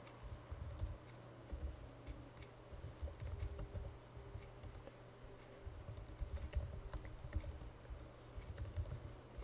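Faint typing on a computer keyboard: irregular keystrokes in short runs, over a steady low hum.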